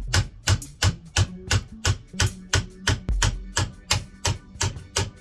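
Background music with a steady beat: sharp, even knocks about four a second over a low bass line.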